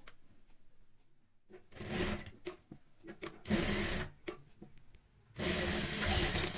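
Industrial sewing machine stitching a neckline in three short runs, the last the longest, with light clicks in the pauses between.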